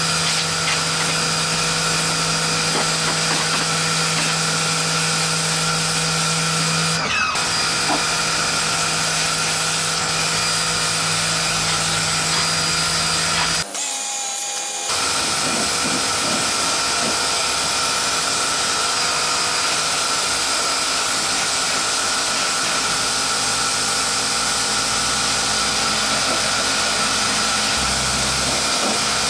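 Pressure washer running steadily, a steady whine over the hiss of its water jet spraying against plant pots, briefly dropping out about halfway through.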